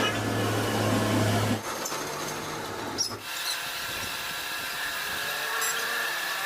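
Workshop power tools running in several short, abruptly cut clips. A low steady hum gives way after about a second and a half to a steadier, higher whine.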